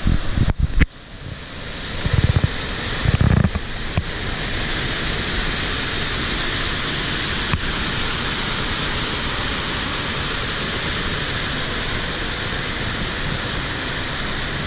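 Waterfall rushing: a steady, even hiss of falling water. In the first few seconds, low gusts of wind buffet the microphone.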